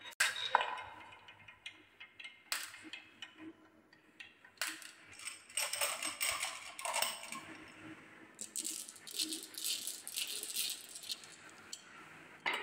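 Glass marbles rolling down a carved wavy groove in a wooden beam and dropping into a plastic basket of marbles, clicking and clacking against the wood and each other. Single sharp clacks in the first half, then two longer spells of quick rattling clicks.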